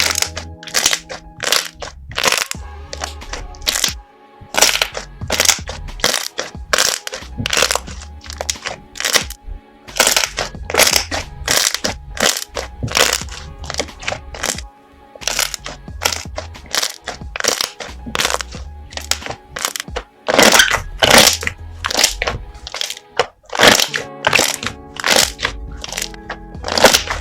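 Slime being squeezed and pressed by hand, giving a quick, irregular run of loud crackling pops, several a second, over background music.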